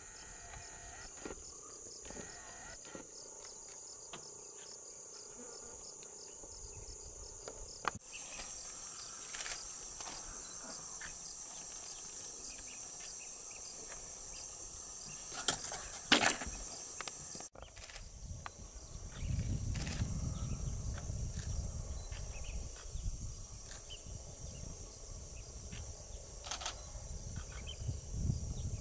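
A steady, high-pitched chorus of insects, with a few sharp clicks a little past the middle. Low rumbling noise comes in during the second half.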